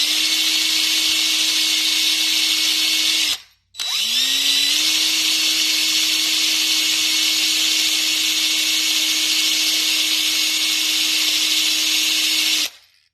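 Electric drill spinning a small cloth buffing wheel charged with buffing compound, buffing the top of a tobacco pipe. The motor runs at a steady pitch, stops briefly about three and a half seconds in, then spins up again and runs until it cuts off just before the end.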